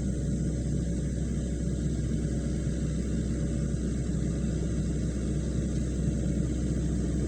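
SANY SY55C mini excavator's diesel engine running steadily, a low, even hum.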